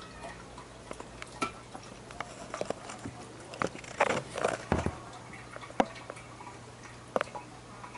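Irregular clicks and knocks heard underwater in a fish tank, with a cluster of louder knocks about four to five seconds in, over a steady low hum.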